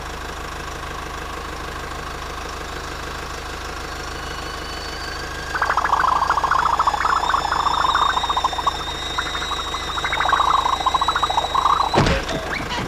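Cartoon sound effects: a car engine runs steadily, and from about halfway a fast, choppy fight clatter joins it. A sharp crash comes near the end.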